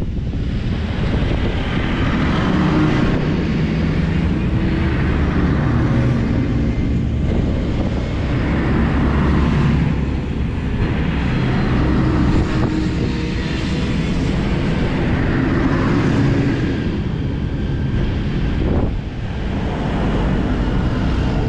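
Tractors in a road convoy driving past one after another, their diesel engines swelling and fading as each one passes close by. A car drives past near the start.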